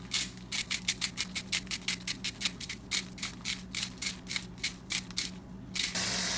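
Hand-twisted salt grinder crunching salt in a rapid run of short grinding strokes, about five a second. Near the end the grinding stops and a kitchen tap starts running water steadily into a plastic zip-lock bag to make the brine.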